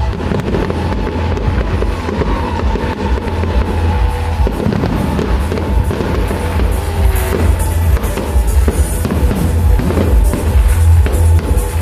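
Fireworks cracking and banging over loud music with a heavy low beat.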